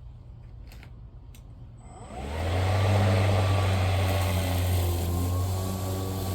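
A Greenworks Pro 21-inch cordless battery lawnmower starting about two seconds in. Its electric motor and blade spin up quickly with a rising whine, then run at speed with a steady, loud hum.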